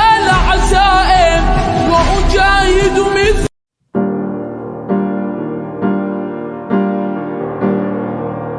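Background music: a sung melody over accompaniment that cuts off abruptly, and after a brief gap, slow piano chords struck about once a second.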